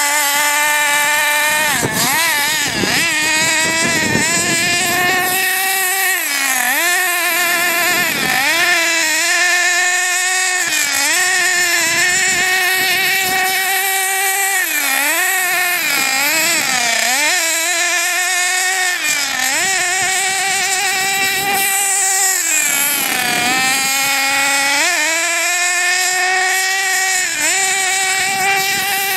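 Small two-stroke nitro glow engine of a radio-controlled buggy running at high revs. Its pitch dips and climbs back every second or two as the throttle is released and opened while it drives.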